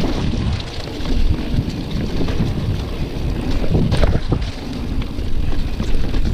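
Wind rushing over the microphone of a camera on a moving mountain bike, with scattered knocks and rattles from the bike going over the trail, a cluster of them about four seconds in.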